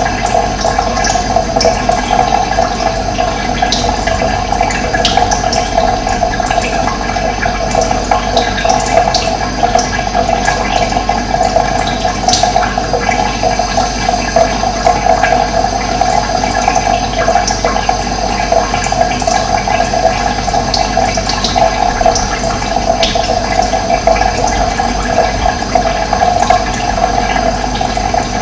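Running water rushing steadily, with scattered short, high bird chirps over it.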